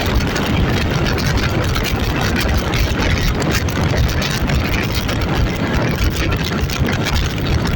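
A loud, steady engine running, with a dense rushing noise over it.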